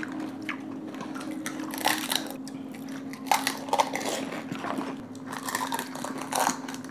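Panipuri being eaten: crisp, hollow fried puris cracking and crunching as they are broken open and bitten, with chewing, in irregular bursts. A faint steady hum lies underneath.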